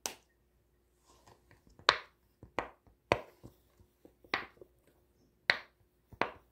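Silicone rainbow pop-it fidget toy with its stiffish bubbles being pressed through one at a time: a string of sharp pops, about seven, at uneven intervals.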